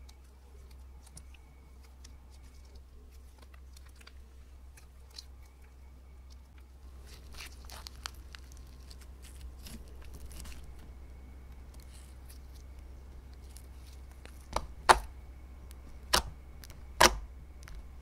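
Hands squishing and stretching clear slime tinted with lipstick, with soft wet crackling and a patch of denser crackling in the middle, then four sharp, loud pops near the end as fingers press air pockets in the slime.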